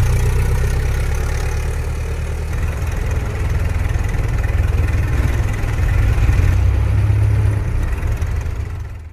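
Vintage car engine running steadily with a low, deep note, its level swelling and easing a little, then fading out and cutting off at the end.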